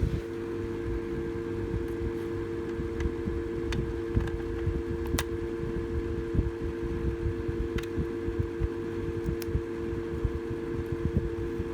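Electric fan running steadily off a HART 20-volt 150-watt battery inverter: an even rush of air under a steady two-note electric hum. The inverter is handling the fan's load.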